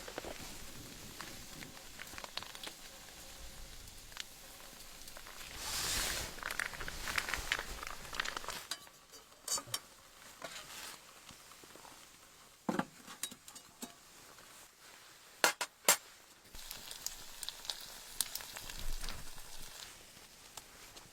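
Cooking in a pan: food sizzling with small clicks and scrapes of a utensil, the sizzle easing off about nine seconds in, followed by a few sharp knocks of metal cookware.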